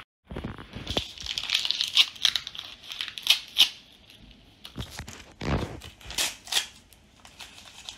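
Thin pink plastic wrapper of an L.O.L. Surprise doll pack crinkling and tearing as small fingers pull it open, with dense crackling in the first few seconds and scattered crinkles after. A couple of duller knocks are mixed in.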